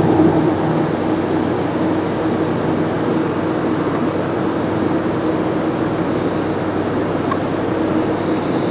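A steady, even mechanical hum with a faint low tone, unchanging throughout.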